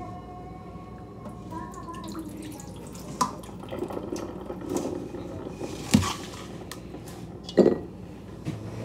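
Stainless steel mixing bowl of raw chicken being tilted and handled on a countertop: wet dripping and small liquid sounds, with a few sharp knocks of the bowl against the counter, the loudest near the end.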